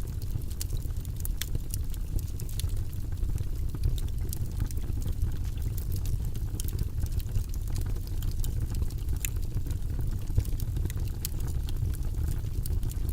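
Wood fire burning in a fireplace, with a steady low rumble of flame and frequent irregular crackles and pops from the burning logs.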